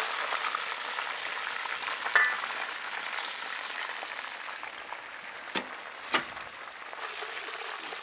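Chicken leg pieces deep-frying in hot oil in a wok-style pan, a steady sizzle that grows slowly fainter as the pieces are lifted out. A short metallic clink comes about two seconds in, and two sharp clicks come a little over halfway through.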